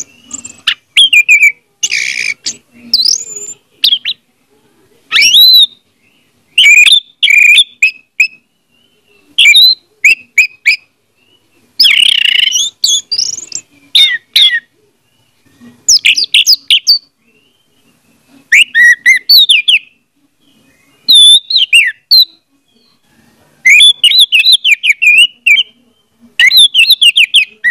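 Orange-headed thrush singing: short bursts of quick, varied whistled notes, each phrase about a second long, with pauses of a second or so between them.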